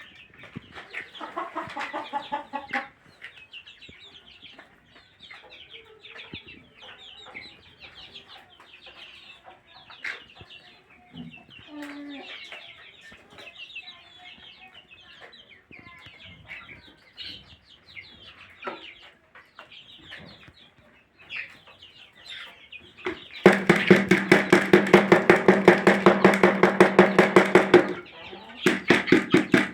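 A flock of chickens clucking and calling, with many short overlapping calls. About three-quarters of the way through, a much louder sound with a rapid, even pulse and a steady pitch starts suddenly, runs about five seconds, stops, and starts again near the end.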